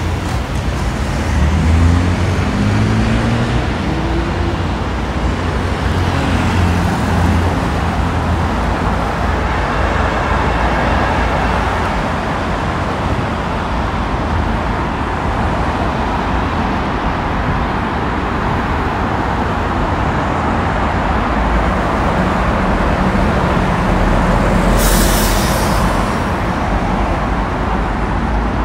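Road traffic at a city junction: cars and vans running and passing steadily. About two seconds in, an engine rises in pitch as a vehicle pulls away. A short hiss comes near the end.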